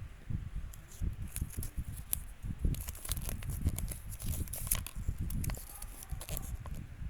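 Toy packaging being handled: crisp crinkling and crackling of the wrapper, thickest in the middle, over dull bumps and knocks of handling.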